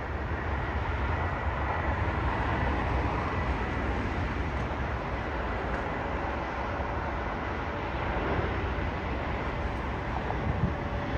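Jet engines of an Alaska Airlines Boeing 737 landing: a steady low rumble with a faint whine.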